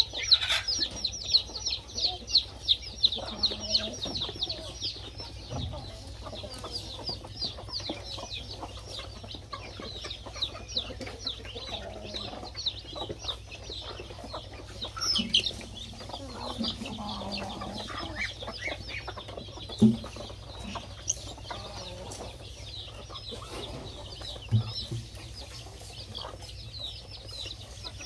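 A flock of free-range poultry feeding. Young birds peep rapidly and continuously, thickest in the first several seconds, while hens cluck low and now and then.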